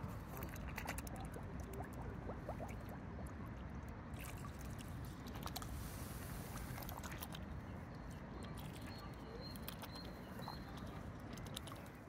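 Mute swan dabbling at the water surface as it feeds, its bill making many quick irregular clicks and patters over a steady low rumble.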